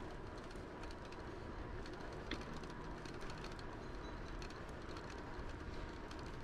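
Tern HSD bike rolling along a paved path: steady tyre and wind noise with small rattles and clicks from the bike, and a sharper click about two seconds in.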